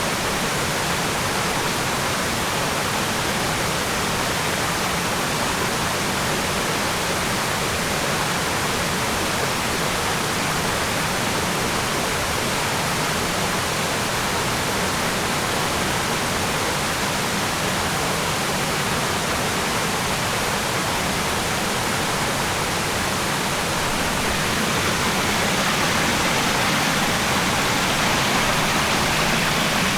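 Waterfall rushing: a steady, even wash of falling water, growing slightly louder near the end.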